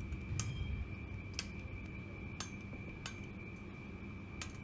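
Small metal clippers snipping parts from a thin etched steel sheet: about five sharp clicks roughly a second apart. A steady high faint tone runs underneath.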